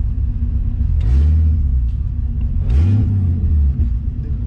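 Car engine pulling through the gears. The pitch climbs again twice after a shift, and each climb is led by a short hiss.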